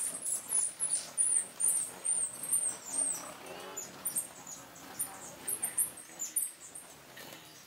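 Hummingbirds at a nectar feeder giving very high, squeaky chip notes, a quick run of about three a second for the first few seconds, then scattered single notes.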